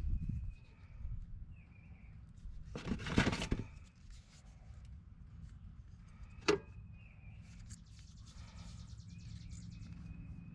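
Hand-tool work on a wire: a burst of rustling handling noise about three seconds in and one sharp snap about six and a half seconds in as wire strippers/crimpers are worked on a gauge wire. Faint short bird chirps recur in the background.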